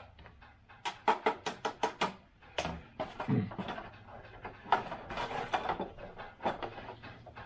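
Quick run of sharp plastic clicks and rattles, then scraping and rustling, as 3D-printed model-aircraft parts are handled and fitted together, with a few more clicks near the end.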